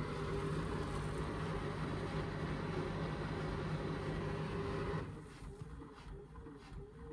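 Indesit washing machine running on its intermediate spin with an unbalanced full cotton load: a steady motor hum and drum noise that drops away about five seconds in. Faint pigeon cooing is left after it.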